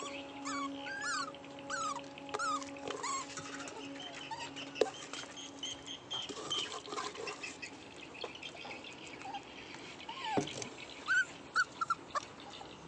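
Puppies whining and whimpering in many short, high cries that rise and fall, over a steady low hum that stops about halfway through.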